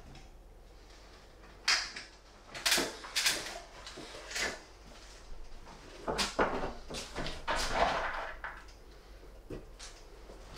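Irregular clicks, knocks and short scrapes of sheet metal being handled, as steel CD drywall profiles are fitted onto ceiling hangers.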